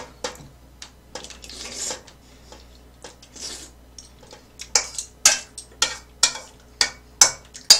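A metal spoon and chopsticks clinking and scraping against a stainless steel pot of ramen. It is quiet at first, then a quick run of sharp clinks comes in the second half.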